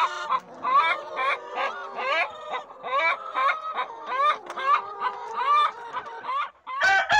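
A flock of brown laying hens clucking and calling at a feeder: many short, rising calls overlapping, several a second. Just before the end a single long, steady call begins.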